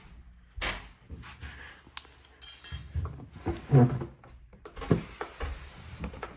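Handling of a glass reptile enclosure: several separate knocks and glass clinks, the loudest a little under four seconds in.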